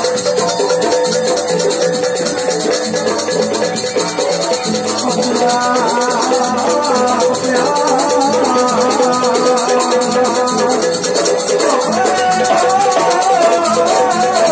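Live jaranan campursari band music: a fast, steady high jingling rattle over a held drone, with a wavering melody line coming in about five seconds in.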